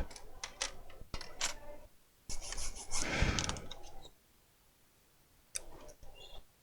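Rubbing and light clicks of laptop parts being handled, with a longer scraping rub about two seconds in and a short scrape near the end.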